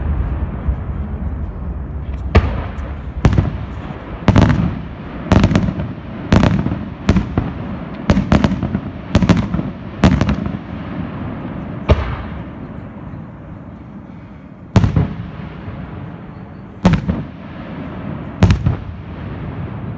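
Aerial firework shells bursting in the sky with a series of sharp bangs: about one a second for several seconds, then spaced a couple of seconds apart. At the start there is a low rumbling crackle before the first bang.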